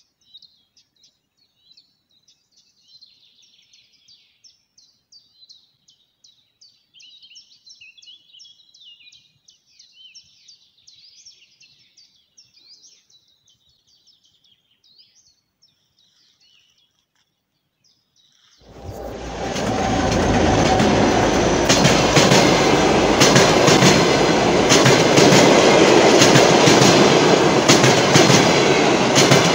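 Small birds chirping and singing. About two-thirds of the way through, a passenger train pulled by a DM62 diesel locomotive comes in suddenly and passes close by, loud, its wheels clicking over the rail joints.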